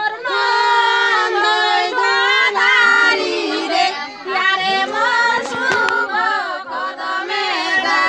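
A group of women's and children's voices singing together in held, sliding notes. A few sharp clicks come about five and a half seconds in.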